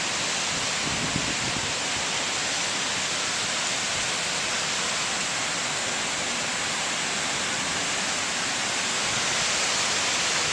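Torrential storm rain pouring down, a steady, even rush of noise.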